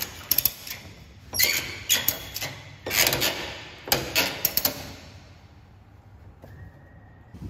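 A series of irregular sharp metallic clicks and clunks, as a ratchet strap is worked to draw the webbing tight through the shackle. The clicks thin out and fade after about five seconds.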